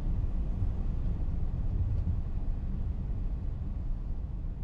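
Steady low rumble inside the flight deck of an Airbus A380 taxiing after landing, easing off slowly toward the end.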